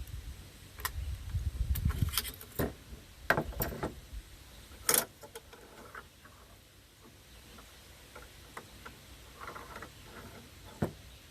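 Sharp metal clicks and clacks of a Sterling carbine's parts being handled as it is opened to change the bolt: a burst of clacks over the first five seconds, then a few faint scattered clicks.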